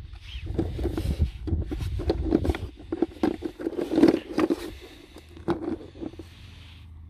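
Chicken eggs clicking and knocking against each other and scraping on the side of a bucket as a hand rummages through them. The clatter dies away near the end.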